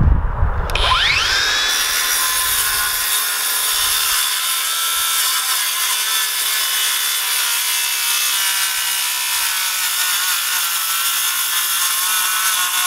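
Skil cordless track saw spinning up with a rising whine about a second in, then running at a steady high whine as it cuts along its guide rail through a board.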